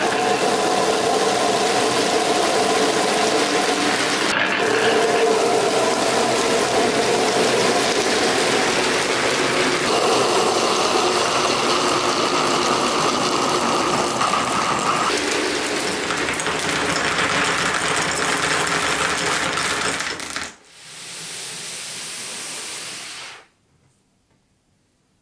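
Many glass marbles rolling together through corrugated plastic pop tubes and along segmented plastic track: a dense, continuous rattling. It drops to a softer rolling about 20 seconds in and stops a few seconds later.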